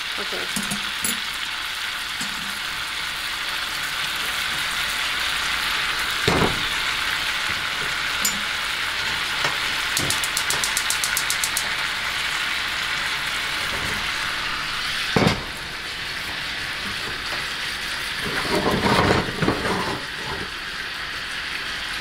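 Ribeye steak frying in butter and olive oil in a hot pan: a steady, continuous sizzle. Over it come a few sharp knocks from the pan being handled on the stovetop, one about six seconds in and one after fifteen seconds, then a clatter of knocks near the end, with a quick run of fine ticks about ten seconds in.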